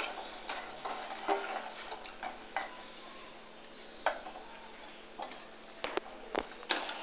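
Steel ladle stirring jaggery melted in water in a stainless steel pot, clicking and knocking lightly against the pot at irregular intervals, with one louder knock about four seconds in.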